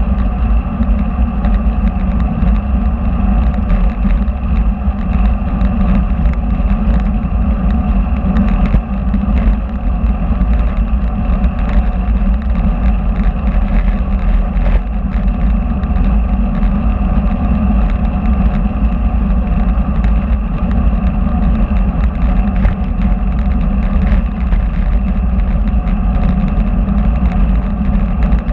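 Steady wind rumble and tyre noise from a road bicycle riding at speed, picked up by a camera mounted under the saddle, with a faint steady hum of a few tones above it.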